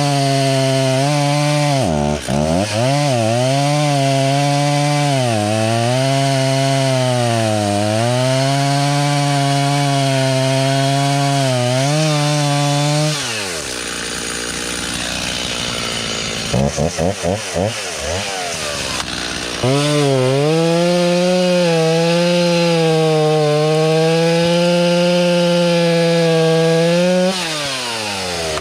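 Two-stroke chainsaw cutting through a log at full throttle, its pitch sagging and recovering as the chain loads up in the wood. About 13 seconds in it drops to idle, is blipped a few times, then cuts again at a steadier full throttle before dropping back to idle near the end.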